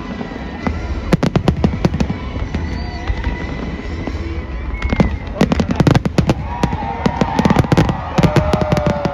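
Fireworks display going off: rapid volleys of sharp bangs and crackles in dense clusters, with a bunch about a second in, a heavier one about five seconds in, and another near the end, over a steady low rumble.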